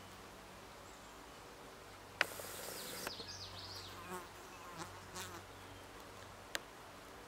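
Flying insects buzzing close by, their wavering drone coming and going over a few seconds. A sharp click starts it off, about two seconds in, and another sharp click comes near the end.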